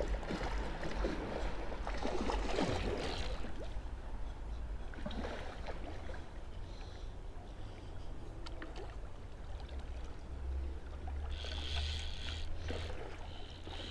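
A hooked Chinook salmon splashing and thrashing in shallow river water during the fight on a fly rod, most strongly in the first few seconds, over a steady low rumble.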